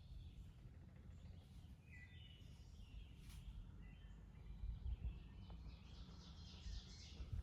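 Faint songbird chirps and short calls, a few separate notes and then a buzzier trill near the end, over a steady low rumble.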